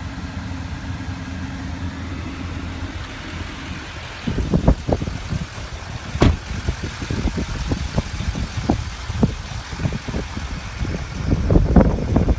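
A pickup truck's engine idling, heard as a steady low hum from inside the cab. About four seconds in this gives way to irregular low thumps and rumbles, with one sharp knock about six seconds in and more rumbling near the end.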